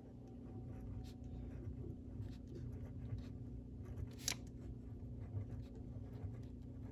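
Zebra Sarasa Speedy 0.5 mm gel pen writing in cursive on a card pen test sheet, with a faint, irregular scratch of the tip. There is one sharp tick a little past four seconds, over a steady low hum.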